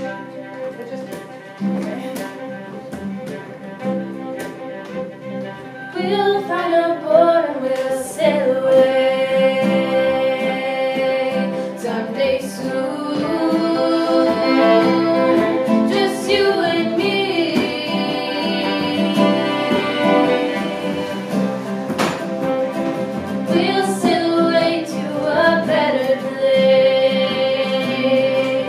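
Fiddle and acoustic guitar playing a slow folk accompaniment; about six seconds in, two girls' voices come in singing a slow song with long held notes over the instruments.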